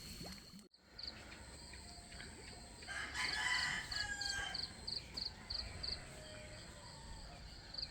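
A rooster crows once, about three seconds in, over a run of short high chirps repeating about three times a second.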